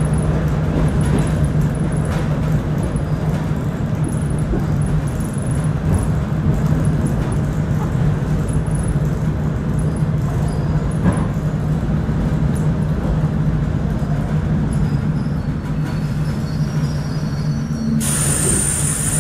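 Inside a moving ER2 electric multiple-unit carriage: steady running rumble and rattle of the car with a constant low hum. Near the end a loud high-pitched whine sets in abruptly.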